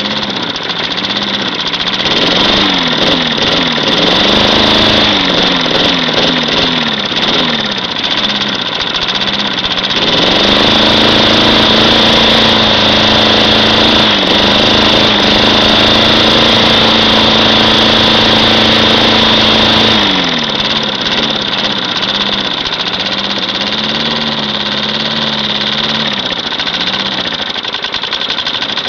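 Propane-fuelled lawn mower engine running unevenly, its speed rising and falling again and again as the gas mixture is adjusted between too lean and too rich. For about ten seconds in the middle it runs louder and faster before dropping back and hunting again.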